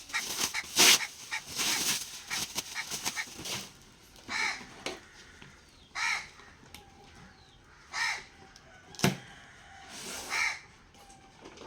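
Crow cawing four times, about two seconds apart, in the second half. Before that comes a run of short, crackly noises, and there is one sharp click near the end.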